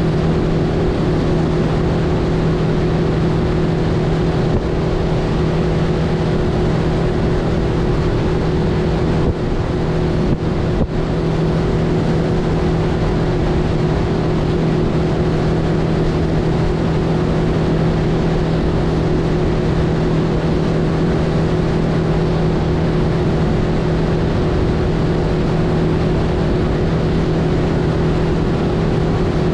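Mercury outboard motor running at a steady cruising speed, holding one even pitch, over a broad rush of wind and water past the boat.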